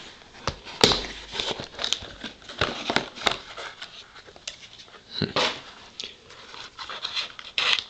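Snug cardboard lid of a trading-card box being worked loose and slid off: scattered light taps and dry rubbing scrapes of cardboard on cardboard, with a longer scrape about five seconds in and another near the end.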